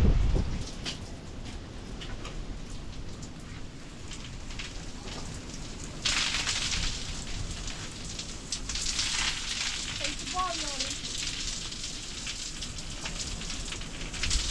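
Water falling from an overhead shower head and splashing on a person's head and body as he washes his hair, a crackling patter full of little drips; the spray gets louder and hissier about six seconds in. A brief blast of wind on the microphone right at the start.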